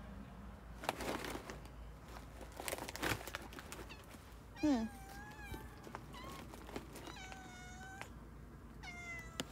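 Cat meowing several times: a short meow falling in pitch about four and a half seconds in, then a high mew held for about a second, and another near the end. A couple of faint knocks come about a second and three seconds in.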